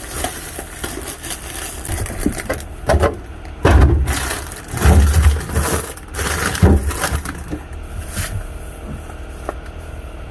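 Handling noise as groceries are moved about in a refrigerator: irregular rustling and crinkling, with a few dull low thumps about four, five and seven seconds in.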